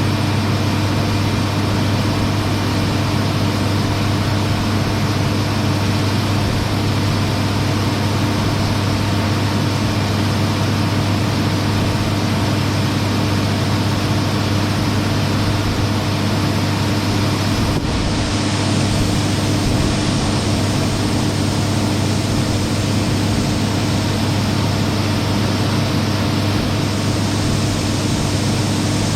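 Engine of heavy farm harvest machinery running steadily at a constant speed, a loud even drone with a strong low hum.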